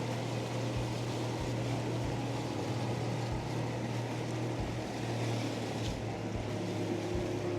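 Small boat's outboard motor running steadily under way, a constant low hum, over rushing wind and water noise, with irregular low buffets of wind on the microphone.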